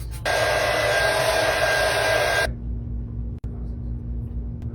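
Handheld hair dryer blowing with a thin motor whine, cut off abruptly after about two seconds, followed by a steady low hum.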